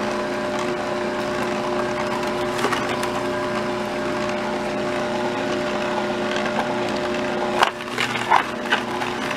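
Electric juicer motor running with a steady hum while it grinds chopped carrots and fruit. A few sharp knocks come near the end as the hum shifts.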